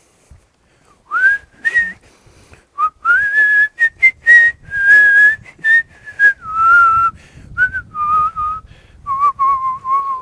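A man whistling a tune by mouth into a clip-on lavalier mic. The string of notes starts about a second in and steps gradually lower toward the end.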